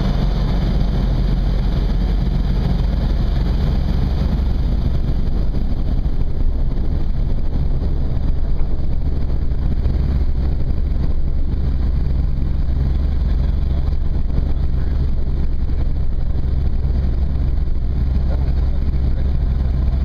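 Engine and propeller of a Zenith STOL CH750 light aircraft running steadily, heard inside the cabin during the touchdown and landing roll.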